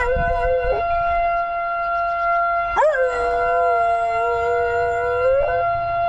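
A dog howls along with the steady tone of an outdoor tornado warning siren. One held howl ends under a second in, and a second long howl swoops up and holds from about three seconds in until shortly before the end.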